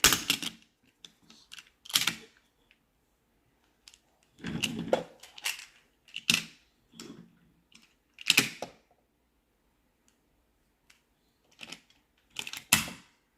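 Plastic magnetic building tiles clacking and snapping together, an irregular string of sharp clicks and knocks with short quiet gaps as pieces are picked up and set in place.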